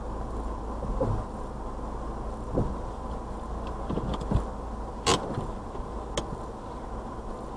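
Car wash machinery humming steadily with a faint steady tone, broken by a series of knocks and clicks; the sharpest click comes about five seconds in.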